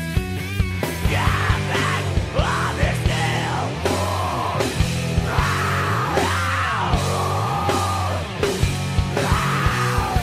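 Punk rock song: a singer yelling over a loud full band with drums and bass, the vocals coming in about a second in.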